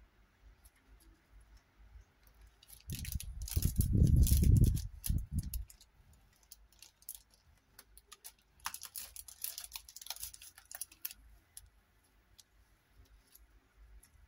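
Handling noise from arranging paper flowers and wooden embellishments on a wooden board by hand. About three seconds in comes a loud, dull, low rumbling knock of about two seconds. Later there is a run of small clicks and rustles.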